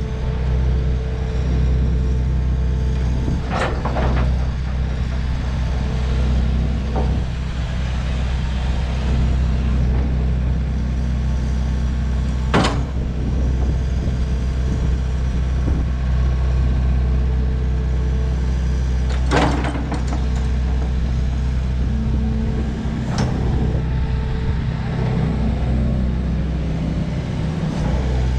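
Hitachi ZX280LC-3 tracked excavator's diesel engine running steadily, with four sharp knocks spread through it.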